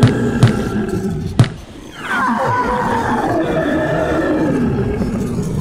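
Cartoon sound effects: heavy footstep thumps about once a second, then a long monster roar that slides down in pitch over about three seconds.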